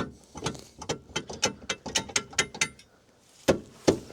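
Ratcheting lifting gear under a car: a quick run of metallic ratchet clicks, about five a second, then two heavier metal knocks near the end as the load is set.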